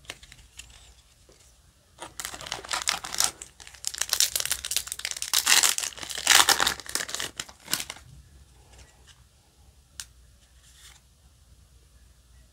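Foil booster-pack wrapper torn open by hand and crinkled, loud from about two seconds in until about eight seconds, then softer rustling with a single sharp tick near the end.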